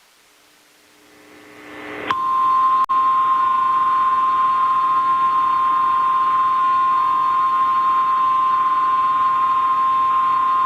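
Emergency Alert System attention tone: a loud, steady single tone near 1 kHz that swells out of near silence and holds unbroken from about two seconds in, announcing a tornado warning.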